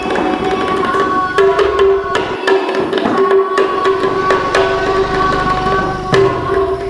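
Background music: tabla drum strokes over a sustained held tone.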